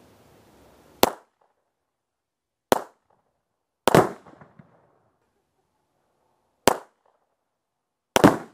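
A series of five sharp bangs from .22 rimfire shots at small binary exploding targets (rimfire-grade Tannerite) and their detonations. The third and fifth come as two bangs in quick succession with a longer rumbling tail.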